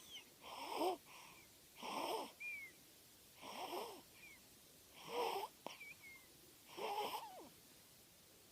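Snoring: five noisy breaths about a second and a half apart, some followed by a short high squeak.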